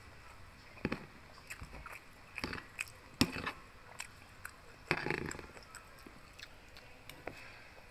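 Metal spoon clicking and scraping against a plastic food container while scooping rice and pork, mixed with close-up biting and chewing. The sharpest click comes about three seconds in, and a longer chewing bite a couple of seconds later.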